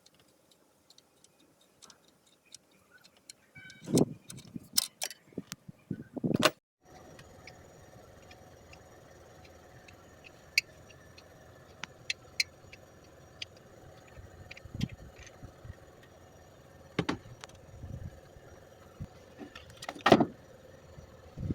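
A few loud knocks and clatter. Then, from about seven seconds in, a Toyota Camry's engine bay runs steadily with a constant whine from a failing alternator, broken by scattered clicks and a few thumps.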